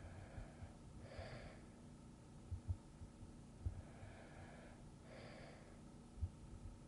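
Quiet, slow breathing of a sleeping person: two unhurried breaths about four seconds apart, each a soft swell of air noise. Faint short low thumps sound now and then between the breaths.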